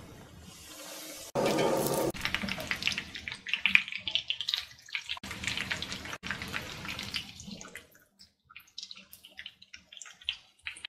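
Breaded chicken cutlets shallow-frying in hot sunflower oil, sizzling and crackling. A loud burst of sizzle comes about a second and a half in, then dense crackling that thins to scattered pops near the end.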